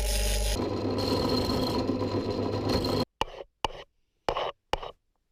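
A steady rasping mechanical noise that cuts off abruptly about three seconds in, followed by four short clipped snatches of noise.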